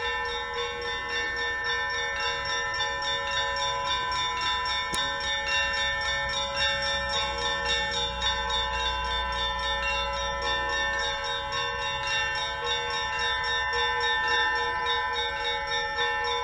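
Orthodox monastery bells ringing together in a dense, continuous peal: many sustained bell tones overlap, with frequent fresh strikes throughout.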